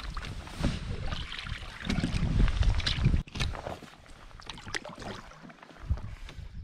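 Canoe paddle strokes dipping and splashing in river water, with wind buffeting the microphone for the first three seconds. After that the paddling is quieter: scattered small splashes and drips from the paddle.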